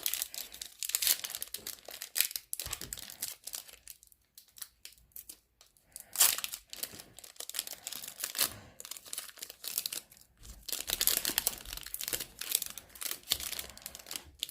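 Crinkling and tearing of a Donruss basketball card pack's wrapper as it is torn open and handled, in irregular bursts with a quieter pause partway through.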